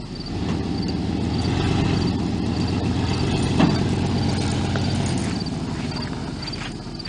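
Pickup truck's engine running steadily, building up over the first two seconds and dying away about five seconds in, as it pulls on a chain to straighten a bent car frame. Crickets chirp throughout, and there is one sharp click partway through.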